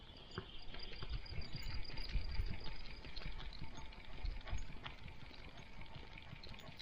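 Rustling, soft thumps and small clicks from a dog moving about in the forest, picked up by an action camera worn on the dog.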